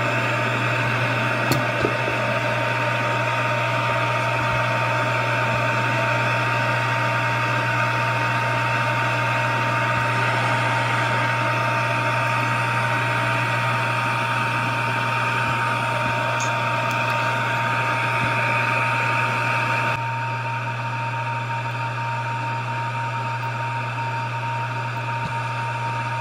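Steady whirring hum and blowing of hot-air rework equipment, a board preheater and hot-air station, with a constant thin whine over it, as a logic board is heated to desolder an inductor. The noise steps down a little about twenty seconds in.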